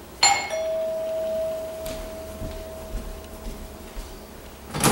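Doorbell chime ringing: a sudden struck onset, then one steady tone that rings on and fades over about four seconds. Near the end there is a single sharp clack.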